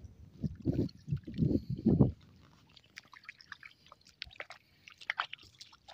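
River water sloshing and splashing for about two seconds, then scattered small drips and ticks.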